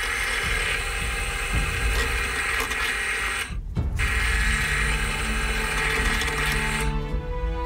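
Drill press boring through wooden knife handle scales: the motor runs and the bit cuts wood with a steady, dense noise, broken by a short cut about halfway. The drilling stops shortly before the end.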